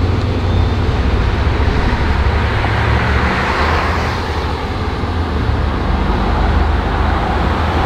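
A flatbed tow truck driving past in street traffic: engine running and tyre noise, swelling about three seconds in as it goes by.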